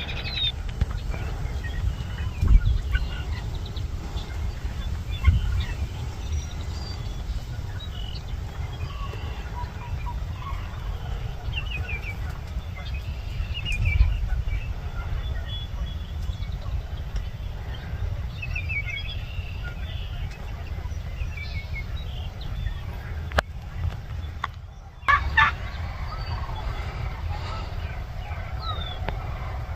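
Wild turkeys calling and gobbling, a string of short rapid warbling calls again and again. A low rumble runs under them, with a few dull bumps on the microphone.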